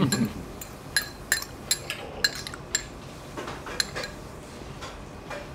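Cutlery clinking against a plate as food is eaten: a string of irregular light clinks, each with a brief metallic ring, thicker in the first few seconds and sparser after.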